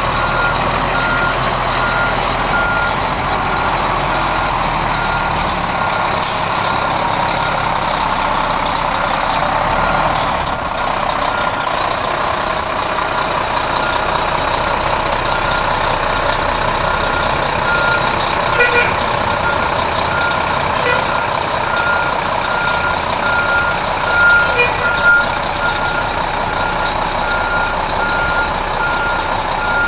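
1991 Spartan/Saulsbury fire pumper reversing, its backup alarm beeping steadily about once a second over the running diesel engine. A sharp hiss of air from the air brakes about six seconds in.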